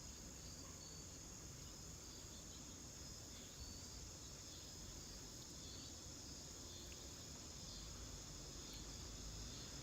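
A faint, steady chorus of crickets, one continuous high-pitched trill.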